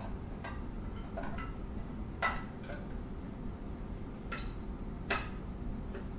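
Handheld OXO can opener clicking against a soup can as it is clamped on and worked round the rim: about eight sharp, uneven metallic clicks, two of them louder.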